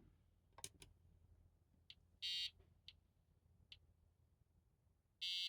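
Gotek floppy emulator's built-in speaker mimicking floppy drive head-step noises while loading: a few faint sharp ticks and two short buzzes about three seconds apart.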